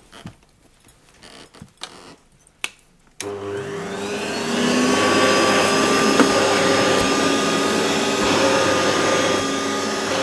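An upright vacuum cleaner is switched on about three seconds in: its motor spins up with a rising whine, then runs steadily. Before it starts, only a few faint knocks and rustles.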